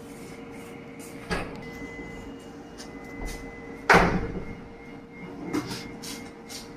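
Two sudden knocks, the second, about four seconds in, much the louder, with a faint steady high tone running between them.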